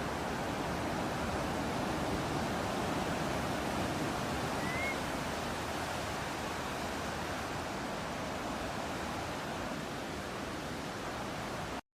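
Steady rush of ocean surf and breeze, with one short, faint rising bird chirp a little under halfway through. The sound cuts out for an instant near the end, a splice in the loop.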